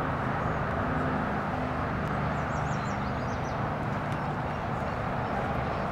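Steady outdoor background rumble and hum, like distant traffic, with a short run of high, quick bird chirps about two and a half seconds in.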